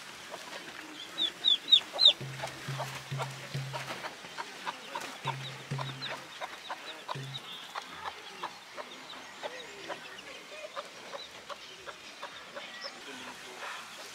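A hen clucking to her brood of chicks, which peep. A run of four loud, high peeps comes about a second in, followed by many fainter peeps and clucks.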